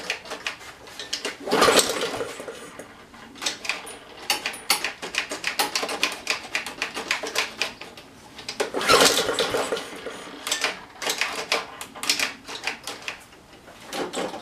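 Two pulls on the recoil starter of a Honda GCV160 mower engine, each a loud rasping crank lasting under a second and a half, about seven seconds apart, with quick irregular clicking and clattering between and after them. The engine does not catch and run.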